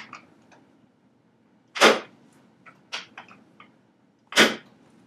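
Drop piece of a chiropractic table snapping down twice with loud clacks, about two and a half seconds apart, with a few lighter clicks between. It is a drop-table adjustment of the lower fibula at the ankle.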